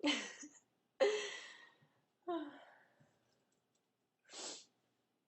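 A woman's short breathy vocal sounds: three quick exhaled sighs in the first three seconds, each starting sharply and fading. A softer breath follows near the end.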